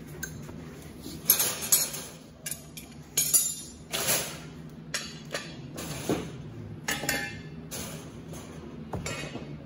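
Steel cart brackets and axle frames clinking and clattering against each other and the wire-mesh cart bed as they are picked up and handled, in a series of irregular sharp knocks.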